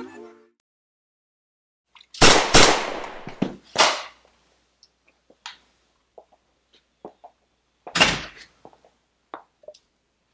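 Pistol shots: two loud reports in quick succession, a third about a second later, and a fourth some four seconds after that, each ringing out briefly. Faint clicks and taps come between the shots.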